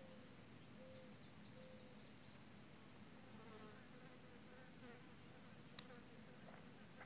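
Near silence: a faint, wavering buzz-like hum, with a quick run of about eight short, high chirps in the middle.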